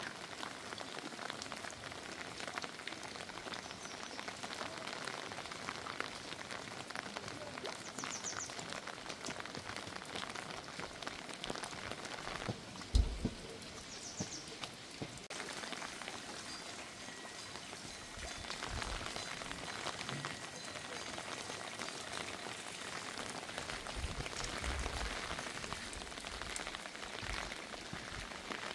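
Steady rain falling, pattering on surfaces with many small drips. A few brief high chirps are heard, and a single low thump about 13 seconds in.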